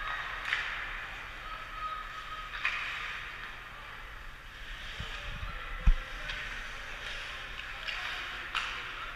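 Ice hockey game at the rink: skate blades hissing and scraping on the ice, with several sharp clacks of sticks and puck spread through. A dull thump about six seconds in is the loudest sound.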